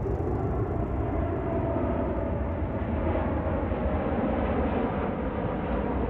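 Jet engines of a Boeing 747 flying low overhead: a steady deep rumbling roar with a faint whine in it.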